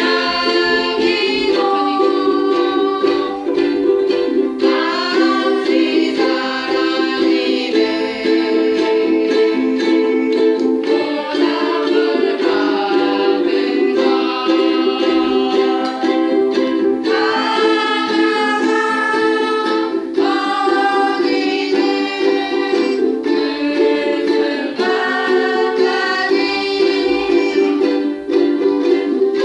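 Ukulele playing a song, chords and melody notes sounding continuously.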